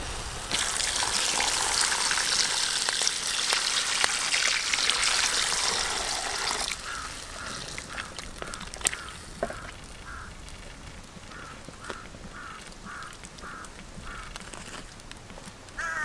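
Snake meat sizzling loudly as it is stir-fried in a wok. The sizzle stops suddenly about seven seconds in, once liquid has gone into the wok. After that comes a quieter simmer, with a string of short calls repeating about twice a second in the background.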